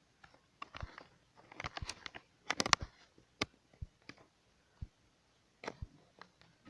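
Scattered light clicks, taps and rustles, with a brief burst of sharper clicks about two and a half seconds in.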